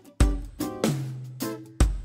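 Background music: plucked strings over a deep beat that lands twice.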